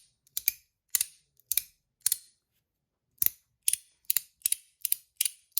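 Metal magnetic fidget slider being snapped back and forth, each slide ending in a sharp, snappy click. The clicks come about twice a second, often as close doubles, with a pause of about a second midway before a quicker run.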